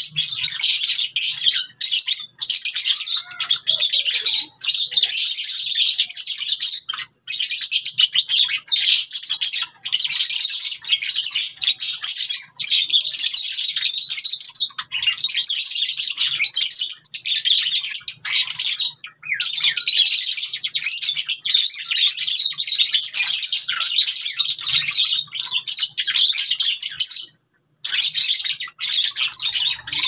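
A flock of Java sparrows chirping almost without a break, many short high calls overlapping, with a few brief pauses.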